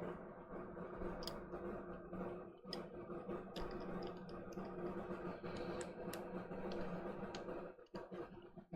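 Scattered small clicks and taps from handling the DualSense controller's plastic parts during reassembly, over a steady low hum.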